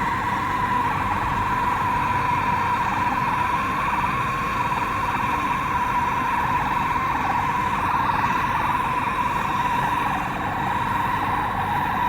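Gas brazing torch burning with a steady hiss on a low flame while brazing a leak in thin copper condenser tubing.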